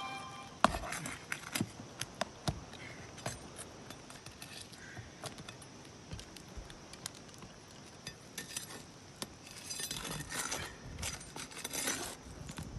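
Brittle asphalt shingles being pried and lifted: a run of sharp clicks and cracks in the first few seconds, then rough scraping from about ten seconds in. The cracking is the shingles breaking apart as they are lifted because they are too brittle to repair.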